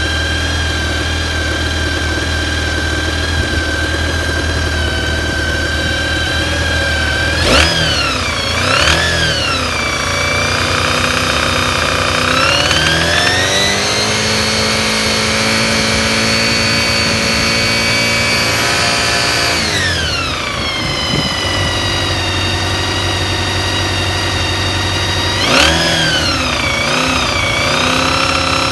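Honda VFR400 NC30's 400 cc V4 engine idling, blipped twice, held at raised revs for about six seconds, then dropped back to idle and blipped twice more. The owner reports a knock from high up under the tank that comes in between 3,000 and 7,000 rpm, is absent at idle, and shows only for a second when the throttle is closed gently.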